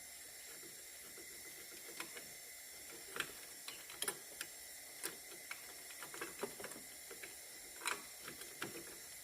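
Irregular light clicks and knocks of hand tools on metal, over a steady faint hiss, as a replacement alternator is fitted to the engine.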